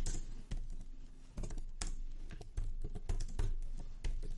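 Typing on a computer keyboard: irregular keystrokes clicking, a few a second.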